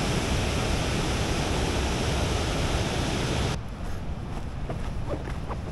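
Rushing water running high, which the speaker calls 'raging': a steady, even rush of noise. It cuts off suddenly about three and a half seconds in, leaving a quieter outdoor background with a few faint short chirps and ticks.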